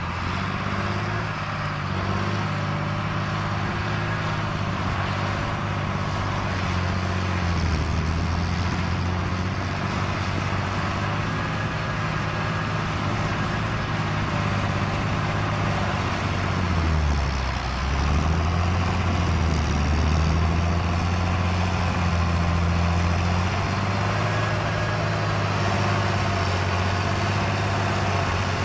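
Large tractor's diesel engine running steadily under load as it pulls a hydraulic land-levelling scraper through sandy soil. The engine note dips briefly about two-thirds of the way through, then comes back up.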